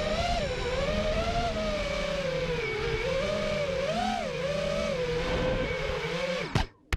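FPV quadcopter's brushless motors whining, the pitch rising and falling as the throttle is worked. The sound cuts off abruptly near the end.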